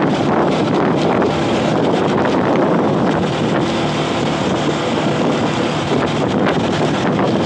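Steady wind rushing over the microphone of a vehicle moving at speed, with the low, even hum of its engine underneath.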